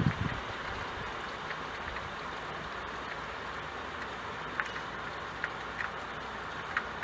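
Steady rain falling, an even hiss, with a few sharp drip ticks in the second half. A low rumble dies away right at the start.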